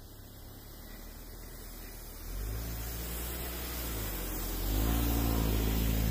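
Rosomakha ATV's engine running as it crawls through deep snow toward the microphone, a low steady drone. It grows louder about two seconds in and again near the end as the vehicle comes close and passes.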